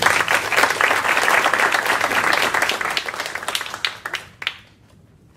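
A small group of people applauding, the clapping dying away after about four seconds with a couple of last stray claps.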